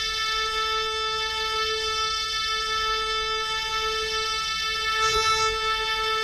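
Yamaha PSR-36 electronic keyboard holding a single steady note with an organ-like voice. A brief knock about five seconds in.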